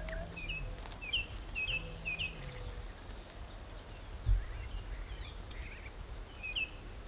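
Small birds chirping in the scrub, many short falling chirps repeated throughout, with a faint low hum twice early on and a single low thump about four seconds in.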